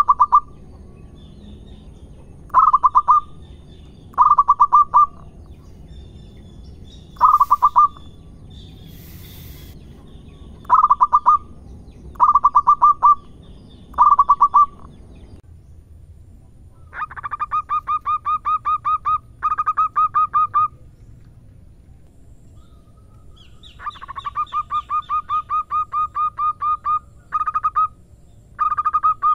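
Zebra doves (perkutut) cooing: short bouts of quick, pulsed coos repeated every couple of seconds, then, after a cut, longer runs of rapid coos lasting several seconds each.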